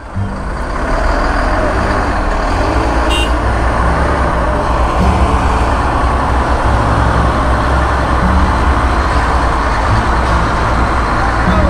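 Diesel engine of a UD Nissan Quester GWE 370 tractor unit running loud and steady as the truck pulls slowly past close by, hauling a lowbed trailer with a heavy excavator.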